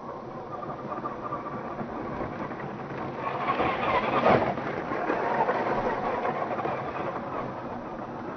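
Tamiya CC-01 Unimog RC truck's electric motor and gears whining, with its tyres crunching over gravel, heard slowed down. The sound grows as the truck comes close, is loudest about four seconds in with a falling pitch as it passes, and fades as it drives away.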